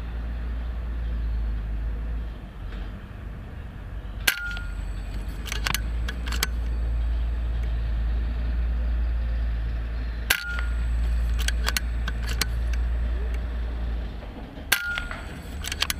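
Three air-rifle shots about six and four seconds apart, each a sharp crack followed by a brief metallic ring. A few lighter clicks follow each shot as the action is cycled for the next pellet. A steady low rumble runs underneath.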